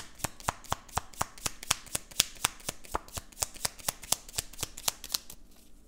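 Tarot cards being shuffled by hand: a steady run of card clicks, about four a second, that stops a little after five seconds in.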